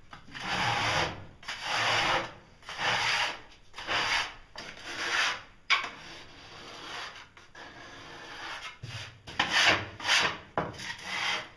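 Hand trowel scraped across a freshly tiled mortar countertop in repeated rasping strokes, clearing off excess mortar. There is a quieter patch midway, then quicker strokes near the end.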